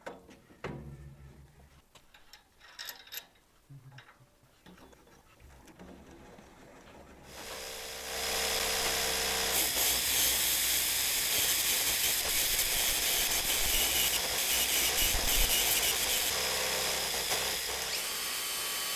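A few light metal clicks and knocks as parts are handled. About seven seconds in, a cordless drill starts spinning a wire brush against metal saw parts and keeps running steadily, scrubbing off old finish and rust.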